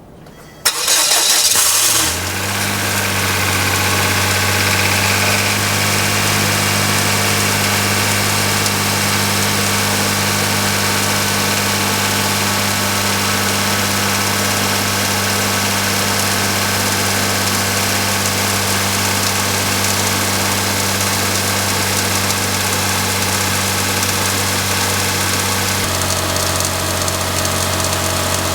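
Daihatsu Move engine started from cold: cranking for about a second and a half before it catches, then idling steadily with the abnormal cold-engine noise the owner is recording. About 26 s in, the idle note shifts.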